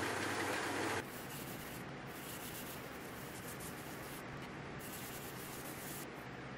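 Hand sanding of a blue-dyed curly maple knife handle with a strip of abrasive pulled back and forth around it, shoe-shine style: a few long rasping strokes, each lasting a second or two. In the first second, a narrow belt sander runs loud and steady, then stops abruptly.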